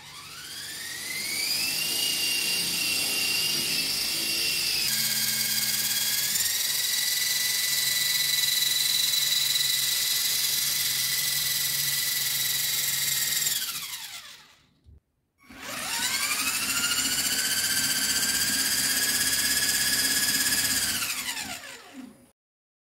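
Small electric motors spinning the twin rotors of a homemade model Chinook helicopter, a high-pitched whine. It rises as they spin up, holds steady, winds down about fourteen seconds in, then spins up again and winds down near the end.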